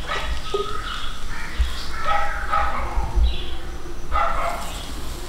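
A dog barking several times in short calls, over wind rumbling on the microphone.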